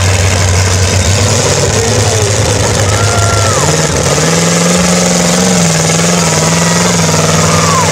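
Lifted mud-bog pickup's engine running loud through open upright exhaust stacks as the truck pushes through a mud hole. It holds steady, then revs up to a higher, steady pitch about halfway through.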